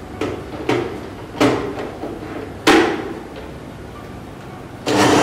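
Small plastic blender jar clunking and clicking onto its motor base, four knocks in the first three seconds. Near the end the blender motor starts abruptly and runs with a loud, steady whir, blending a wet rose-petal mix.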